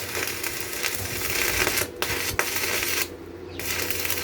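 Electric arc welding crackling and hissing, pausing briefly about two seconds in and stopping for a moment about three seconds in before it starts again, over a steady electrical hum.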